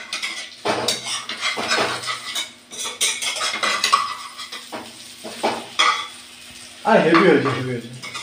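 A spatula repeatedly scraping and clinking against a frying pan as an egg omelette fries, with light sizzling of the oil.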